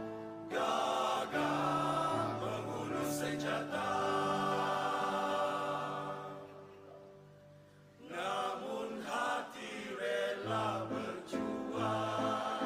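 Male choir singing in harmony: long held chords that die away to a soft, near-quiet point, then the voices come back in about eight seconds in with shorter, moving phrases.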